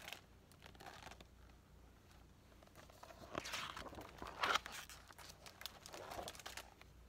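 A paper page of a picture book being turned by hand, rustling and crinkling about halfway through, with a weaker rustle near the end.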